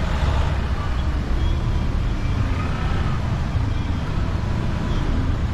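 Road traffic on a busy street, with cars and motor scooters passing close by: a steady low rumble of engines and tyres.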